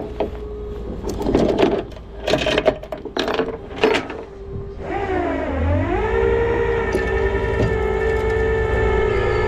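Rollback tow truck idling, with a string of short clanks and scrapes for the first few seconds. About five seconds in, the hydraulic whine dips in pitch, then settles into a steady high whine over the engine as the winch takes up the load.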